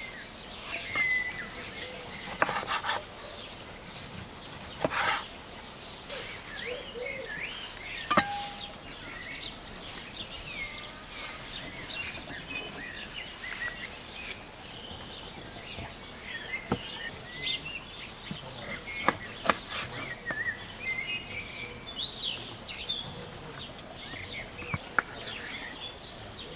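Small birds chirping and singing throughout, with scattered sharp taps and clicks of a knife on a wooden cutting board as tomatoes are sliced.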